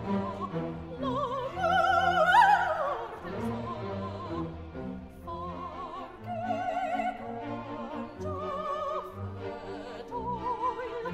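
Operatic singing with a wide vibrato over orchestral accompaniment. The voice jumps to a loud high note about two seconds in and slides down from it.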